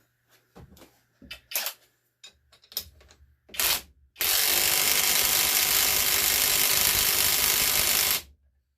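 Cordless impact wrench, an $18 AliExpress knockoff of a Milwaukee M18, hammering a 1/2-inch bolt tight: a few handling clicks, a short trigger blip about three and a half seconds in, then about four seconds of steady impacting that stops sharply. It sounds wimpy.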